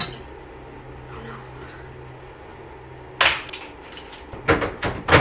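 Laundry being handled at a front-loading washer and a laundry cart: clothes moved about over a faint steady hum, a loud burst of handling noise about three seconds in, then a quick run of knocks and clicks near the end.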